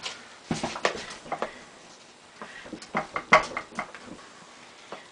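Irregular knocks and clicks of hands handling a stand mixer's stainless steel bowl and beater while the dough is checked for unmixed flour at the bottom of the bowl; the loudest knocks come a little past the middle.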